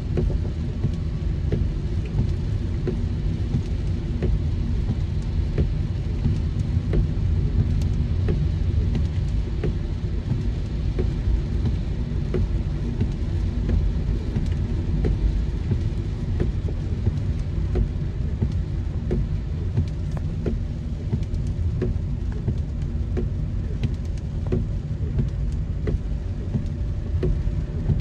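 A car driving in heavy rain: a steady low rumble of road and engine noise with the even hiss of rain and many small taps of raindrops hitting the car.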